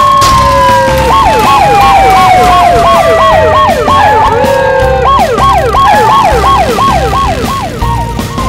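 Cartoon siren-style sound effect: a rapid wailing yelp that rises and falls about three times a second, with a slower falling tone under it, over background music with a low pulsing beat.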